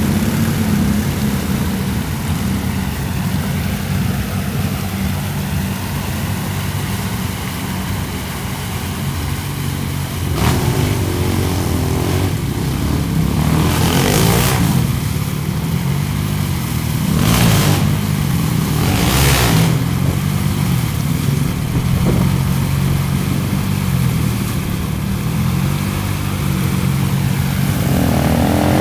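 Kawasaki Brute Force ATV engine revving up and down under load as it churns through deep mud. There are brief rushes of splashing mud and water about ten, fourteen, seventeen and nineteen seconds in.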